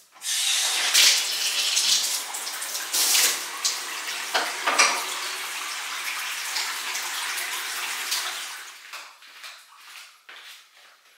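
Bathtub faucet turned on, water gushing into the tub in a steady rush that starts abruptly, with a few louder splashes along the way. About eight and a half seconds in, it gives way to quieter, scattered small sounds.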